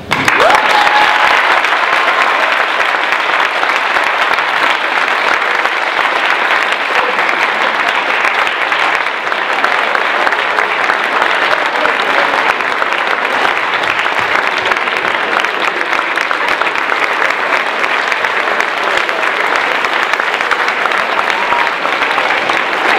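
Large audience applauding, starting abruptly and continuing steadily.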